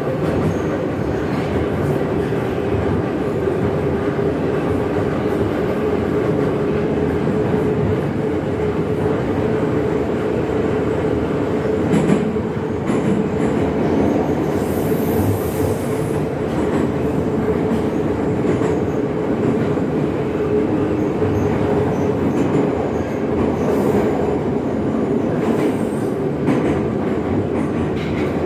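Inside a vintage metro train car running through a tunnel: a steady rumble of wheels on rails with a constant low hum. A sharp knock comes about twelve seconds in, and a brief high-pitched squeal a few seconds later.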